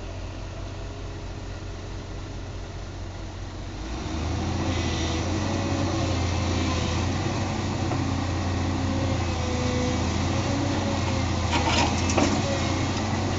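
Case CX240 excavator's diesel engine running, idling at first and then rising to a louder, fuller drone about four seconds in as the boom and demolition attachment are worked hydraulically. A few sharp knocks and clatters come near the end as the attachment is lowered onto the rubble.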